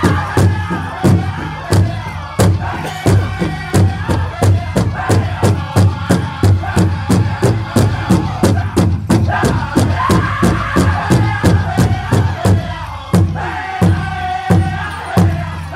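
Powwow drum group singing a chicken dance contest song, several voices together over a large powwow drum struck in unison at about three to four beats a second.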